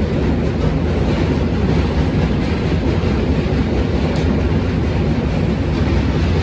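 Jammu Tawi Express passenger train running at speed over a steel truss bridge: a steady, loud rumble of wheels on rails with the rush of air at an open coach door, and a few faint clicks.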